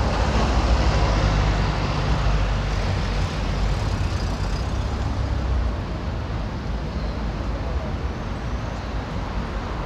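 City bus passing close by with its engine running as a heavy low drone that falls away about six seconds in, leaving steady street traffic noise.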